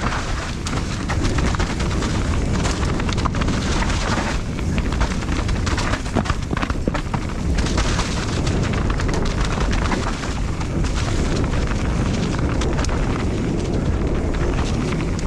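Wind rushing and buffeting over the camera microphone during a mountain bike descent, with the bike rattling and frequent sharp knocks from the trail.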